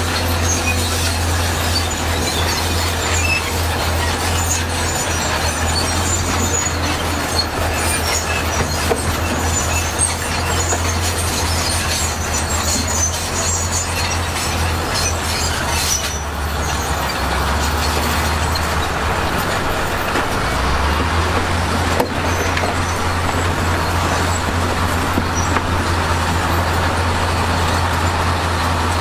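Heavy diesel earthmoving machinery, bulldozer and dump trucks, running steadily with a deep engine drone and scattered metallic clatter. The engine note shifts around the two-thirds mark, and there is a single sharp knock shortly after.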